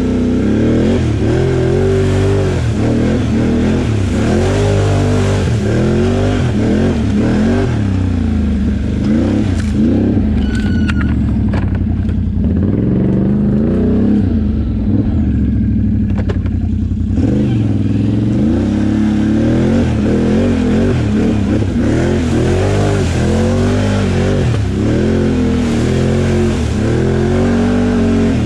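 Can-Am Outlander XMR 850 ATV's V-twin engine, revving up and down over and over as it is ridden. For a few seconds about halfway through it sounds duller, losing its upper ring, then revs on as before.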